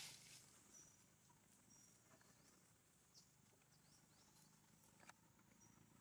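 Near silence: faint outdoor ambience with a brief rustle at the very start, a few light clicks and some faint short high chirps.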